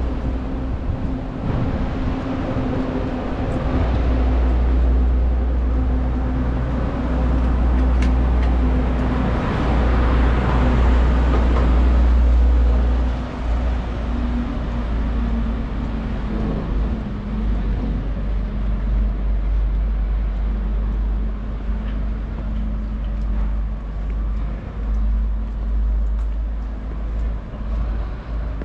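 Road traffic on a city street: vehicles running and passing close by, with a low rumble and a steady engine hum, loudest around ten to twelve seconds in.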